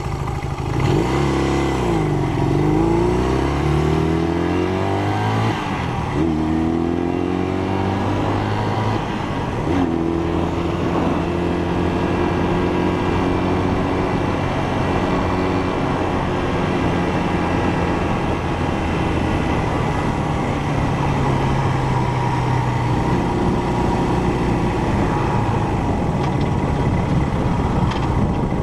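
1971 Honda CL175's air-cooled parallel-twin engine running: revved up and back down a couple of times in the first several seconds, then settling to a steady idle.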